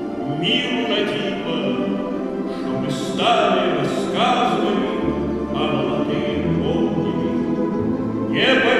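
Mixed choir singing long, held notes with a Russian folk-instrument orchestra accompanying; deep bass notes enter about five seconds in.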